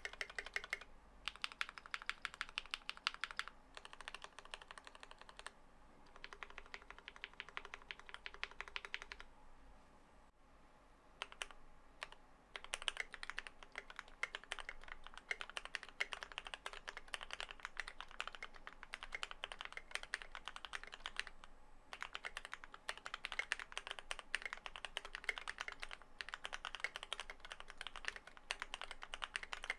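Idobao ID80 v1 mechanical keyboard with lubed, filmed Gateron Yellow linear switches and a polyfil-stuffed case being typed on: rapid runs of keystroke clacks with short pauses. For the first nine seconds the modifier keys are pressed. After a lull about ten seconds in, continuous typing follows.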